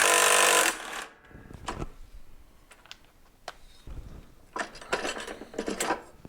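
Cordless power tool running briefly at the start as it backs off a mower pulley bolt, then small metal parts (bolt, washers, pulley) clinking and rattling as they are handled and set down.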